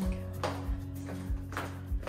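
Background music with a steady beat: a low thump a little under twice a second under held notes.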